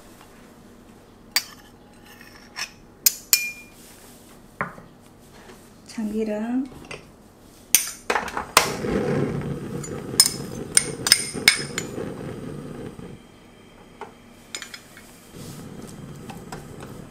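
Small glass ingredient bowls clinking and a wooden spoon knocking against a bowl and an enamelled wok as sesame oil and minced garlic go into the pan. There are scattered sharp clicks, then a few seconds of low scraping with a quick run of taps in the middle.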